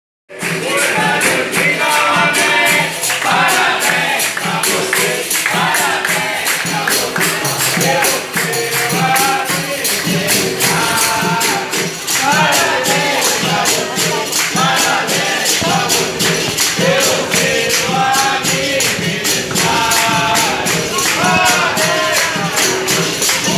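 Capoeira roda music: berimbaus, pandeiro and atabaque playing a steady rhythm while a group sings along and claps.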